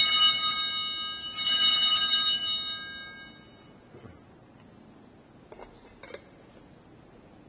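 Altar bells (sanctus bells) rung at the elevation of the consecrated host: a cluster of small bells shaken twice, bright, high ringing that dies away after about three seconds. A few faint clicks follow near the end.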